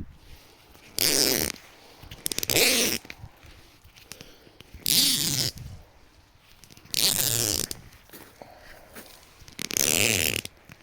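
Guy-line ratchet pulley being hauled tight: five rasping pulls, each about half a second long and spaced roughly two seconds apart, as the cord zips through the ratchet.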